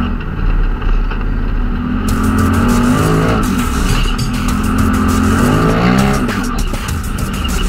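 Polaris RZR side-by-side's engine running under throttle while driving over sand dunes. The revs climb sharply about three seconds in and again near six seconds.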